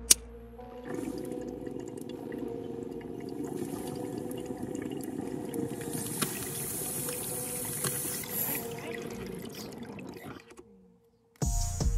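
Water bubbling and gurgling in a glass bong as smoke is drawn through it, a steady churn that fades out about ten and a half seconds in. A single sharp click comes right at the start.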